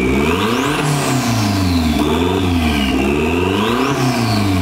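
Turbocharged Mazda Miata four-cylinder engine revved up and down about three times, with a high whine that climbs with each rev and falls away slowly as the revs drop.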